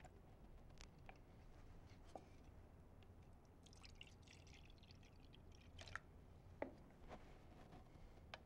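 Very faint trickle of water being poured into a plastic measuring cup about three and a half seconds in, with a few light clicks of plastic cups being handled.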